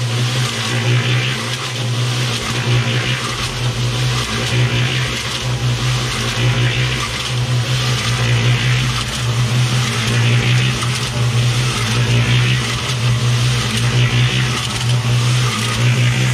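Small portable electric cement mixer running, its motor humming steadily while wet concrete tumbles and sloshes in the turning drum. It is switched off at the very end.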